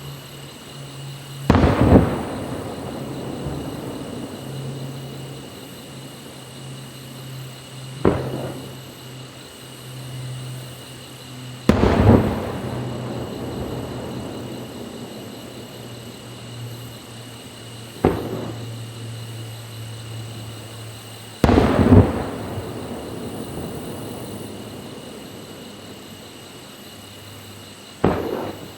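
Aerial firework shells bursting one after another, about six loud bangs a few seconds apart, some in quick pairs, each followed by a long rumbling echo that dies away. A steady low hum runs underneath.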